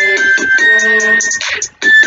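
Music with held keyboard-like tones in a repeating phrase, broken by a short gap near the end.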